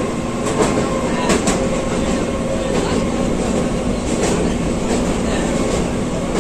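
Passenger train running, heard from inside the coach by the window: a steady rumble of wheels on rails, with a few sharp clacks from rail joints.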